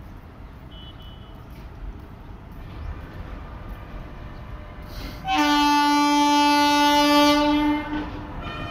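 Electric locomotive approaching with a low rumble, then sounding its horn in one long steady blast of about two and a half seconds, starting a little past halfway through.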